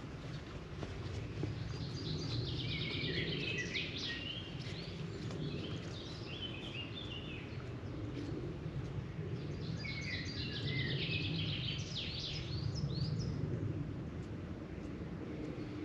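A songbird singing two long phrases of quick repeated notes, the first starting about two seconds in and the second about ten seconds in, over a steady low rumble of outdoor noise.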